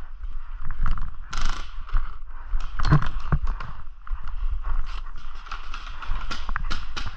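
Running footsteps on a dry, leaf-covered dirt floor, with a steady irregular clatter of knocks and clicks from carried gear. Wind and handling rumble on the body-worn microphone sit under it.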